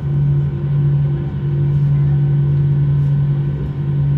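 Steady low drone of an Airbus A319's IAE V2500 turbofan engines at ground idle during taxi, heard inside the passenger cabin.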